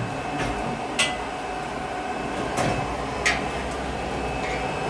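Steady drone of a forge's electric blower fan, with a few sharp metallic clinks of iron and tongs in the fire, the loudest about a second in, as the iron heats.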